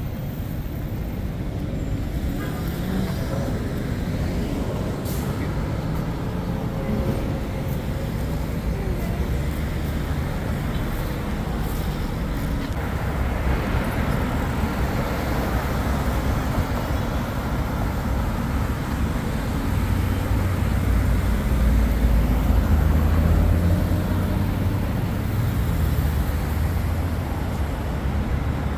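Road traffic: a steady low rumble of vehicles that grows louder about twenty seconds in, then eases off a few seconds later.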